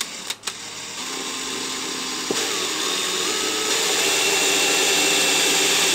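Cordless drill boring into a sailboat's fibreglass hull, drilling the light-fitting screw holes oversize for an epoxy fill. A couple of clicks come first, then the drill runs steadily from about a second in, growing louder as it bites.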